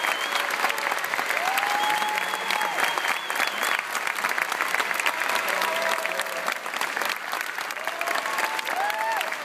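Concert audience applauding in a standing ovation, a dense steady clapping. A long, high whistle rises above it from about two seconds in, along with a few shorter shouts.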